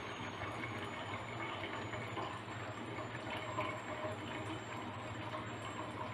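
Water pouring steadily from a plastic jug into a stainless steel saucepan, filling it with about a litre.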